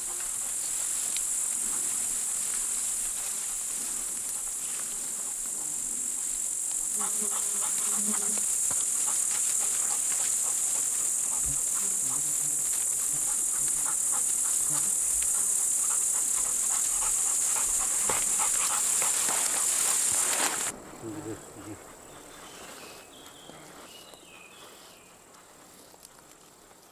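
A steady, high-pitched chorus of meadow insects (grasshoppers and crickets) with rustling through tall grass and a dog panting. The insect sound cuts off suddenly about two-thirds of the way through, leaving a much quieter background.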